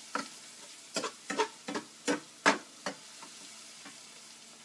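A spatula knocks and scrapes against a frying pan as food is stirred, in a quick run of clinks. The loudest comes about halfway through, and the clinks stop about three seconds in. A faint frying sizzle runs underneath.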